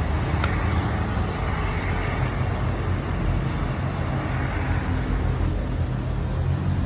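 Steady low mechanical rumble with an even hiss over it, with no distinct events.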